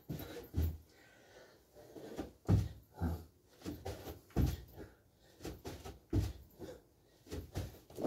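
A person's feet and hands landing on a carpeted floor and foam exercise mat during jumping jacks and burpee kick-outs: irregular dull thumps, about one to two a second.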